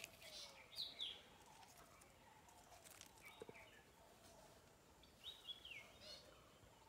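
Faint birds chirping: short, falling high notes here and there, with a quick run of several about five seconds in, over a quiet outdoor hush.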